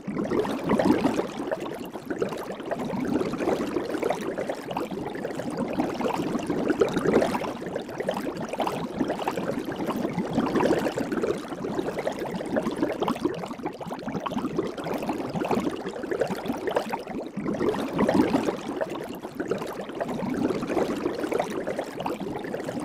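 Soap bubbles fizzing and crackling as many tiny bubbles pop, a dense continuous crackle that swells and eases every few seconds.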